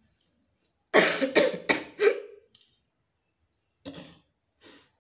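A person coughing: a fit of about four coughs in quick succession, then another cough a couple of seconds later and a fainter one near the end.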